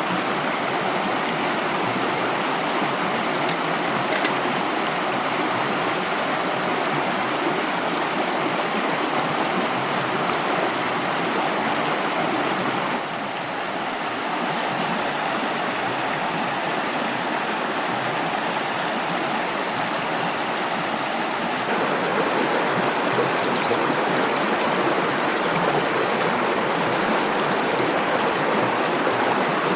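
Valley stream flowing with a steady rush of water. A little before halfway the rush turns slightly quieter and duller, and about three-quarters of the way through it comes back louder and brighter.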